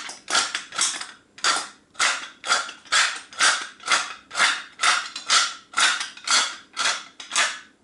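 Tall wooden pepper mill being twisted by hand, grinding peppercorns in a steady series of short crunching creaks, a little over two twists a second. It stops near the end.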